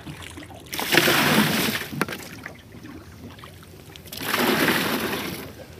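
A plastic bucket dipped over the side of a boat and hauled up full of seawater, water splashing and pouring off it. This happens twice, each rush of water lasting just over a second.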